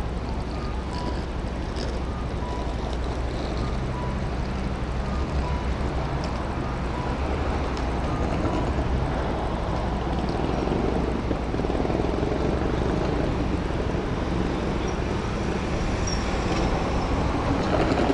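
Suzuki Address 125 scooter's single-cylinder engine idling at a standstill. A pedestrian crossing signal beeps in two alternating tones for about the first nine seconds, and surrounding road traffic grows louder in the second half.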